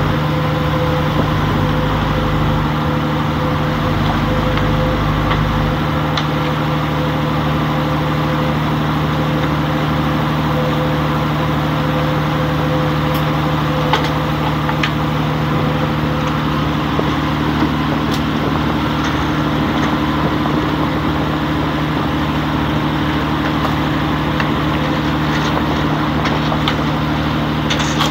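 A purse-seine fishing boat's engine running steadily, a constant hum with a low rumble underneath that drops away about six seconds in. A few light knocks come through in the middle.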